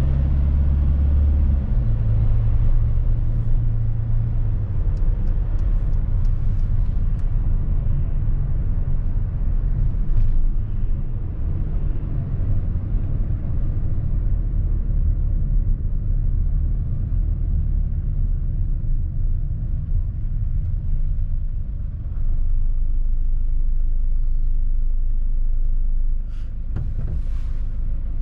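Mercedes-Benz Sprinter van on the move: a steady low rumble of engine and road noise, with the engine note shifting in the first few seconds. A few short clicks near the end.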